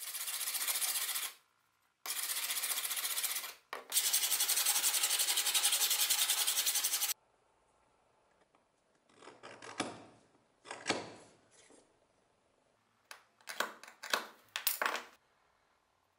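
Hand file rasping across the steel of an old knife held in a vise, in three long runs of quick back-and-forth strokes. In the second half come quieter, shorter scrapes and rubs against the metal.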